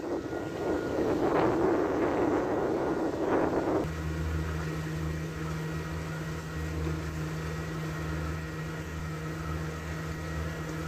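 A rushing noise of wind and water for about four seconds, which then changes abruptly to a 50 hp Mercury outboard motor running steadily with a low, even drone.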